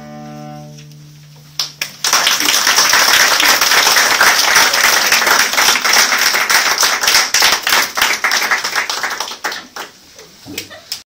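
Two cellos sound the final notes of a duet, a low note held and fading out. About two seconds in, audience applause breaks out and goes on, thinning to scattered claps near the end.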